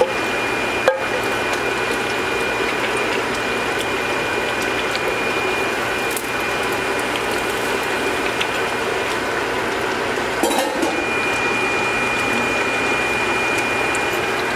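A large stainless-steel stockpot of vegetable stew simmering on an electric stove: steady bubbling and hiss. A thin steady high tone runs over it, dropping out for a few seconds midway, and there is a single click about a second in.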